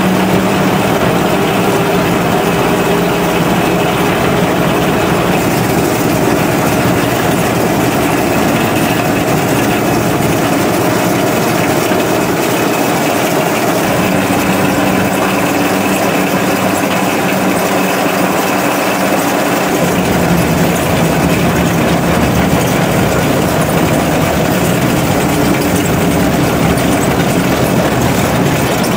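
Diesel engine of a Billard T75 narrow-gauge locotractor, heard from inside its cab while the locomotive runs along the track, with rail running noise. The engine note drops and rises a few times as the throttle changes.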